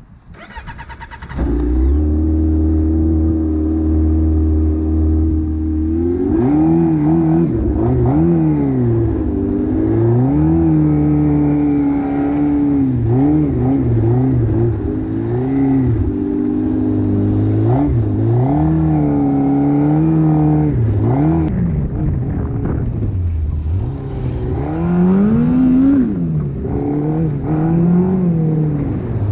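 Yamaha Apex snowmobile's fuel-injected 1000cc four-stroke four-cylinder engine starting up about a second in and running at a steady idle for a few seconds. It then pulls away, its pitch rising and falling again and again as the throttle is opened and eased off while riding over snow.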